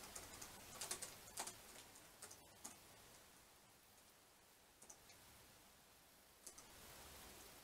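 Faint, sparse keystrokes on a laptop keyboard: a few single taps with pauses between, more of them in the first half.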